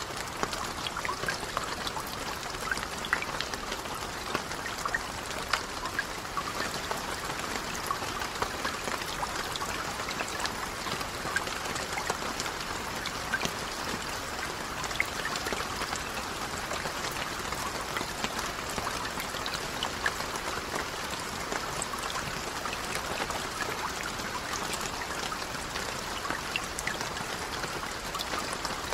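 Steady rain falling on a lake: an even hiss of rainfall with many small, sharp drop splashes scattered through it.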